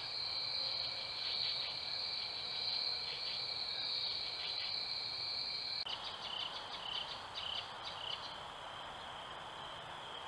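Crickets chirping in a steady high trill. About six seconds in it changes to a lower-pitched trill with short chirps repeating about twice a second.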